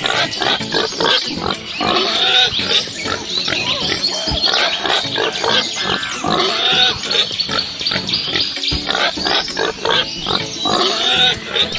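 Pigs grunting and oinking: many short calls in quick succession, one after another with no pause.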